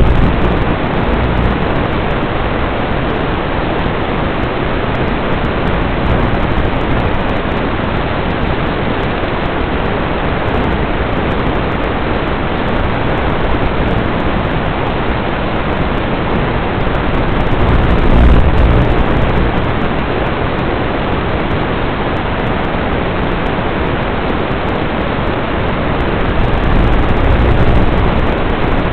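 Steady rushing hiss of static, like an analog FPV video link's audio channel, with no motor whine in it. The low rumble swells up briefly about two thirds of the way through and again near the end.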